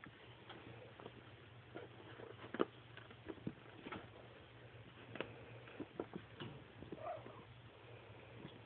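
Month-old sphynx kittens scampering and playing on a fleece blanket: irregular soft pattering and scattered sharper clicks of small paws and claws.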